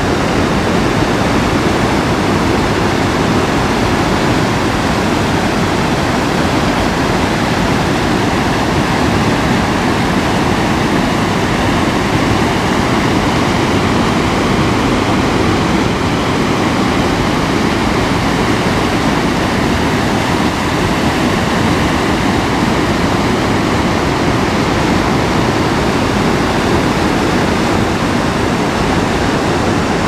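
Low waterfall and river rapids: a steady, loud rush of water pouring over rock ledges, unchanging throughout.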